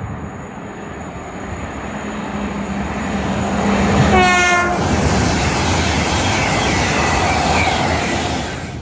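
A train running past, its rushing noise growing louder and staying loud, with one short horn note lasting about half a second about four seconds in.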